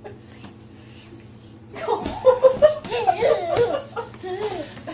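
Laughter starting about two seconds in: a run of short bursts, then longer rising and falling sounds of the voice.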